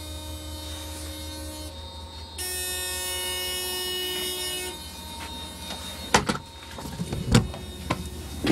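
Remanufactured AEM-7 electric locomotive running with a steady low electrical hum. A louder steady pitched tone comes in for about two seconds, then several sharp bangs near the end. The crew take such sounds as a sign of serious trouble that usually shuts the locomotive down.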